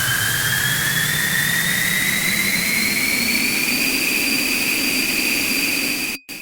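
Harsh noise track: a loud wall of hiss with a high electronic whine that slowly rises in pitch and then holds steady. It cuts off suddenly near the end, followed by a brief burst.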